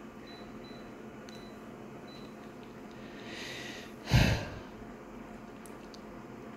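A person breathes in and then lets out one short, loud breath through the nose about four seconds in, close to the microphone, over the steady hum of a running photocopier.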